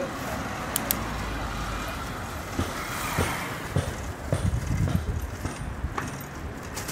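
A car driving past, its engine and tyre noise swelling to a peak about three seconds in and then fading. Low rumbles and knocks follow as wind hits the microphone during a bicycle ride over rough asphalt.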